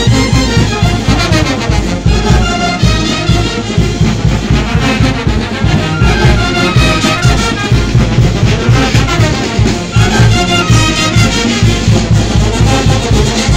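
Festival band music with brass instruments carrying the tune over a steady drum beat.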